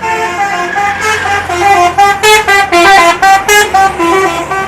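Bus 'telolet' musical air horn playing a fast tune. It starts suddenly and steps quickly between notes, several pitches sounding at once, in short loud blasts.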